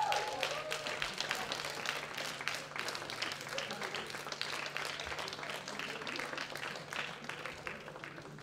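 Audience applauding, the clapping thinning and dying away gradually toward the end.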